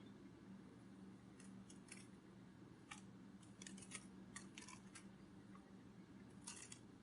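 Near silence: faint, irregular soft clicks over a low steady hum.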